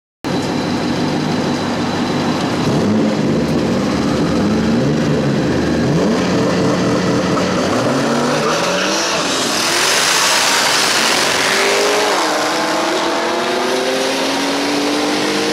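Street-race cars, among them a twin-turbo Cadillac CTS-V, revving at a stop light. Eight or nine seconds in they launch hard with a loud rush. After that, heard from inside a chasing car's cabin, engine notes climb steadily in pitch under full-throttle acceleration.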